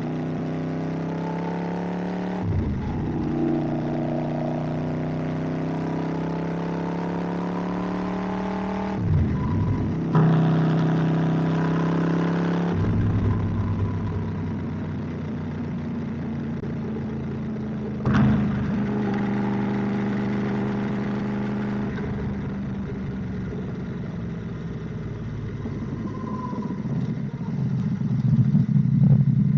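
Yamaha R1's crossplane-crank inline-four engine running under way, its pitch changing abruptly several times as the rider works the throttle and gears. It swells louder near the end.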